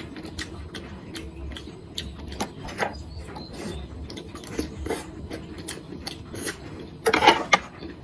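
Close-up eating sounds: chewing and crunching of crispy fried fish, with many small irregular clicks and a louder burst of crunching about seven seconds in.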